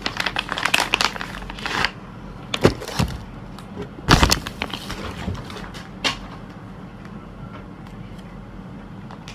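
Packaging crinkling and rustling as a parcel is handled, followed by a few separate knocks and bumps from the object being moved about, then only a low steady hum.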